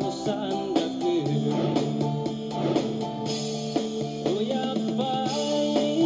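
Background song with guitar, drums keeping a steady beat, and a singing voice.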